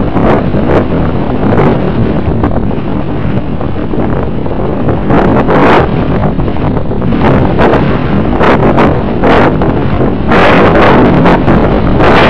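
Wind buffeting the microphone of a camera mounted on a radio-controlled model airplane in flight: a loud, rough rushing with frequent short crackles, getting louder about ten seconds in.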